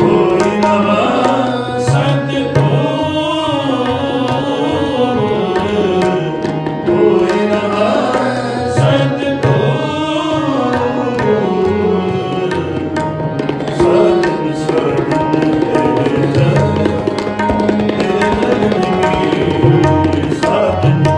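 Sikh shabad kirtan: a tabla keeps a steady rhythm under a harmonium's held tones and a drawn-out, pitch-bending sung melody.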